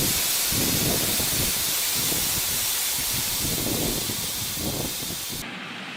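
A loud, steady hiss like spray or escaping steam, with irregular low rumbles under it. The hiss cuts off suddenly near the end.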